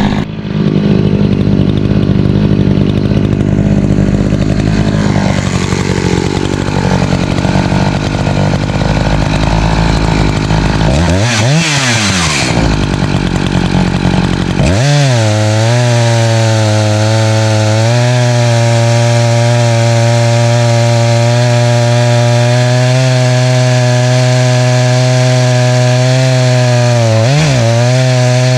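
Echo CS590 Timberwolf two-stroke chainsaw running under load, ripping a black ash log lengthwise into slabs in a chainsaw mill. About a third of the way in the revs drop and climb back. It then runs at a steady, even pitch, with one brief dip in revs near the end.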